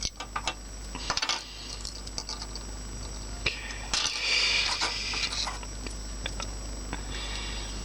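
Light plastic clicks and taps from handling a plastic Transformers toy and its small parts. About three and a half seconds in there is a rustle lasting roughly two seconds.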